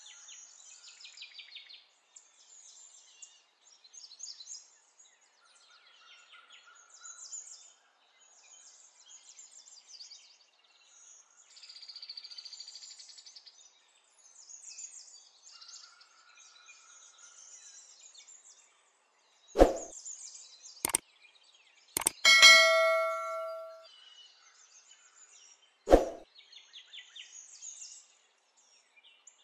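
Faint bird chirping in the background, broken by a few sharp knocks and, about 22 seconds in, one loud metallic ding that rings for about a second and a half.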